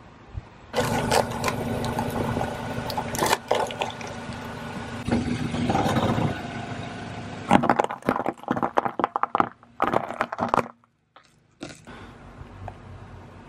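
A car's engine idles, then a car tyre rolls over a pile of sugar cubes, crushing them in a dense run of sharp crunches and cracks that lasts about three seconds and then cuts off suddenly.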